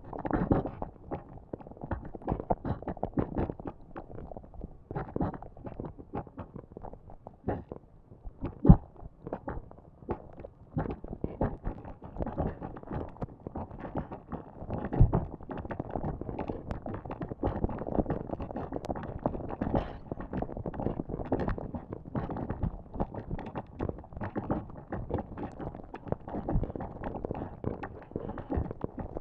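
Lava sound effect: thick molten lava bubbling and popping in a dense, irregular crackle, with a sharp loud pop about nine seconds in and a heavier one around fifteen seconds.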